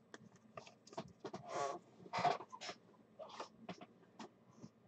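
Trading cards handled on a table: faint scattered clicks and scrapes, with two short louder rustles about one and a half and two and a quarter seconds in.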